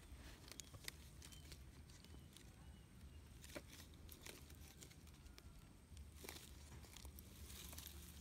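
Near silence with a few faint scattered clicks and rustles.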